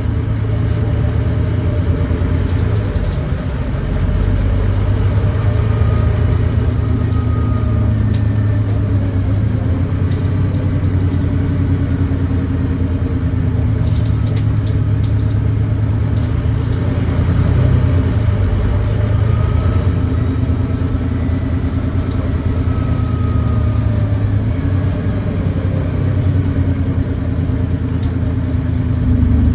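Volvo D9B 9.3-litre diesel engine of a Volvo B9TL double-decker bus running under way, a steady low drone whose pitch eases and climbs a few times. The bus has an exhaust leak, giving a thrashy engine note.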